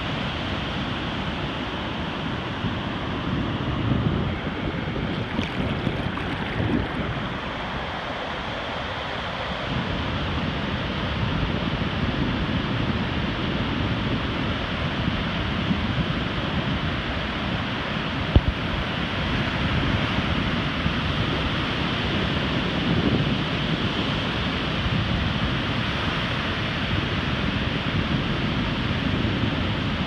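Ocean surf breaking offshore and washing up a flat sandy beach, a steady rushing wash. Wind buffets the microphone, and there is one brief knock a little past halfway.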